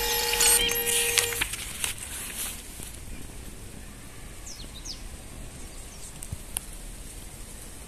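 Music with held tones that ends about a second and a half in, leaving faint outdoor background noise with two short high descending chirps near the middle.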